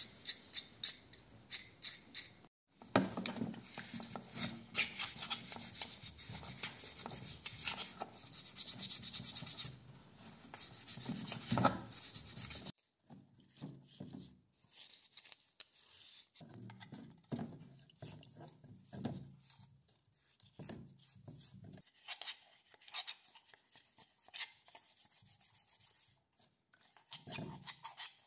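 Stiff bristle brush scrubbing the metal parts of a pneumatic drill clean in quick back-and-forth strokes, louder in the first half. It opens with a couple of seconds of rapid ticking.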